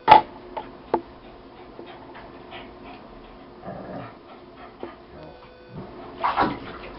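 Small Lhasa apso–shih tzu mix dog whimpering in a bathtub, with a short whine about six seconds in; the dog is frightened of the bath. A sharp knock sounds at the very start.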